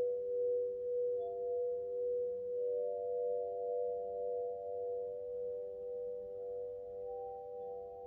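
Crystal harp, its glass rods stroked by the fingers, giving several sustained pure tones that ring together, with new notes joining about a second in, around three seconds and near the end. The layered tones swell and fade in a slow, even pulse.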